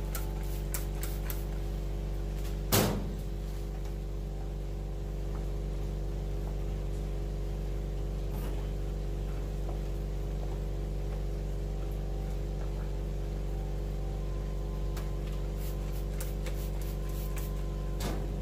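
Steady machine hum with several even tones, one sharp knock about three seconds in, and a few faint taps while a towel is rubbed over rubber blasting gloves.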